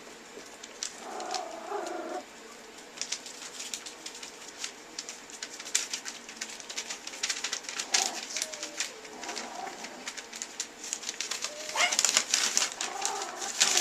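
Toy poodle puppies whining and whimpering in short, bending calls, over many light high clicks and jingles that grow busiest and loudest about twelve seconds in.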